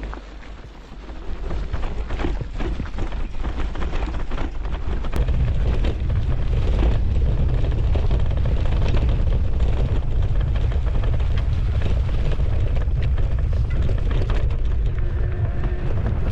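Wind buffeting an action camera's microphone while riding an e-mountain bike on a trail, with scattered knocks and rattles at first; a heavy low wind rumble sets in about five seconds in and stays.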